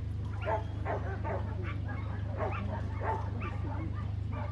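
A dog barking repeatedly in short, sharp barks at uneven intervals, over a steady low hum.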